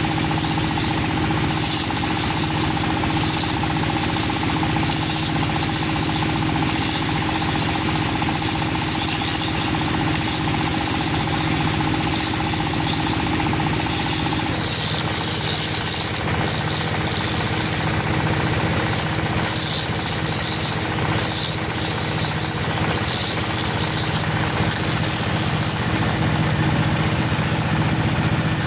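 Dowel machine running steadily while making wooden broom handles. About halfway through, its hum changes and a scratchy high hiss joins in.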